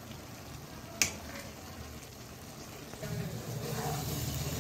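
Wooden spatula stirring instant noodles in a non-stick pan, with one sharp tap about a second in. A low hum comes in about three seconds in.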